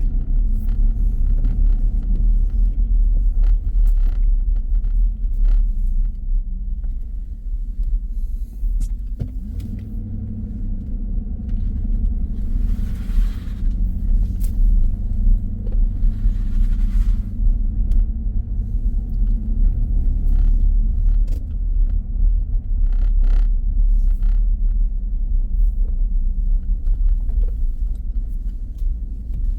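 Steady low rumble of a car's engine and road noise, with scattered light clicks and two brief hissing swells about halfway through.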